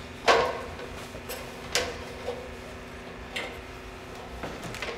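Shoes knocking on the rungs of an aluminium extension ladder as a man climbs it: a loud knock about a third of a second in, then lighter irregular knocks and clicks every second or so.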